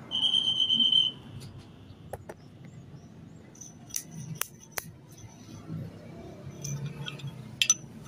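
A loud high steady whine lasting about a second, then a handful of sharp metallic clinks and clicks, like hand tools and steel parts knocking together during motorcycle steering-head work.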